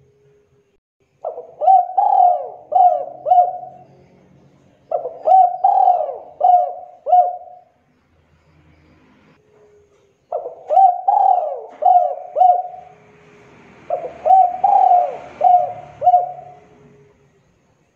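Spotted dove cooing: four phrases, each a short opening note followed by about four quick coos, with pauses of one to two and a half seconds between phrases.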